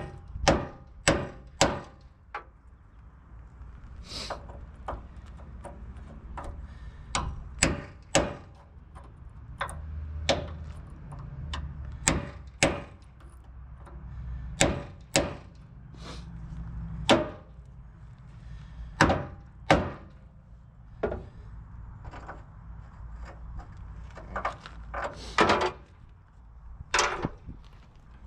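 Irregular sharp knocks and clunks, some thirty of them, from hand work on an old pickup truck's frame and parts, over a steady low rumble.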